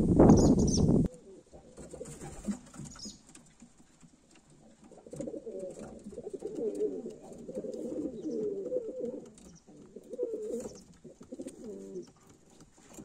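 Domestic pigeons cooing: a series of low, wavering coos in repeated phrases through the second half. A loud burst of rustling noise in the first second cuts off abruptly.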